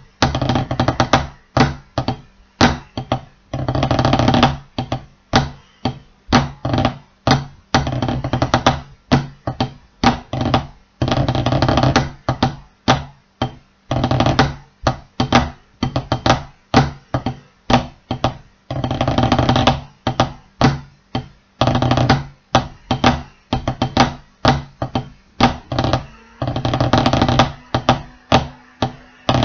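Wooden drumsticks played on a drum practice pad: a rhythmic pattern of sharp single taps broken every few seconds by short rolls of about a second.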